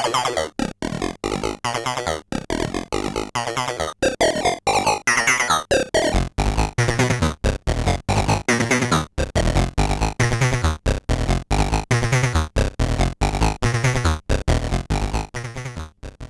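Soulsby miniAtmegatron 8-bit Arduino-based synthesizer playing a fast run of short, choppy notes, several a second, with sweeping shifts in tone, fading out near the end.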